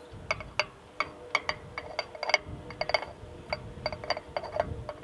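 Irregular light metallic clicks and ticks, a few a second, as the centre bolt on top of a 1946 Farmall M's oil filter canister is turned out by hand, with wind gusting on the microphone.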